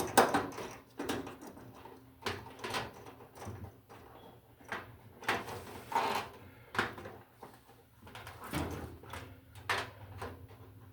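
Irregular knocks, clicks and rustles of electrical wires and lever connectors being folded and pushed up into a range hood's metal wiring box.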